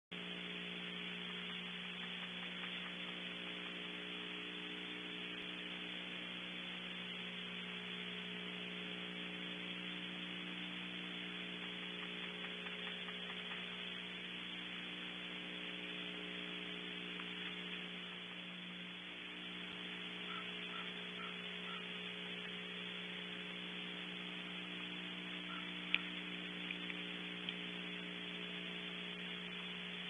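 Steady electrical hum and hiss from a nest-cam microphone, with a few faint ticks and one sharp click near the end.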